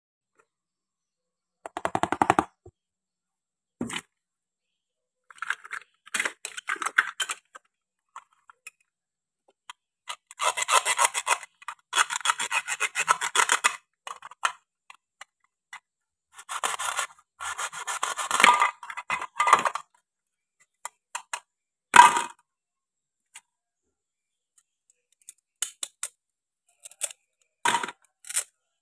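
Toy cutting set: a wooden toy knife drawn through plastic play food whose halves are held by velcro, giving several rasping tears a second or a few seconds long as the velcro pulls apart. Short plastic clicks and knocks of pieces on the wooden board come between, with one sharp knock about two-thirds of the way through.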